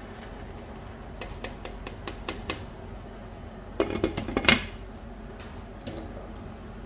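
A ladle tapping and scraping in a pan of boiling shrimp soup, a few light clicks, then a glass pot lid clattering onto the pan about four seconds in, the loudest sound.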